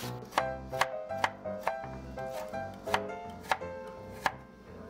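A kitchen knife slicing cucumber into thin matchsticks, each stroke a sharp knock on a wooden cutting board, about seven strokes roughly half a second apart. Background music plays under it.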